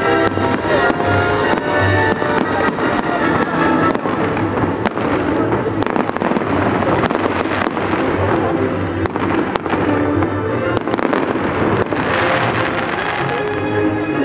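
Fireworks bursting and crackling in quick succession over loud music with long held notes.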